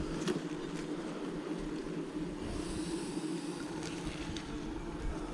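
Honeybees buzzing around an open hive: a steady, dense hum, with a few faint clicks.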